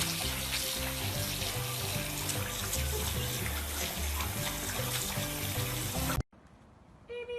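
Water running from a tap, heard over background music with steady low notes. Both cut off abruptly about six seconds in, and a brief high-pitched sound follows near the end.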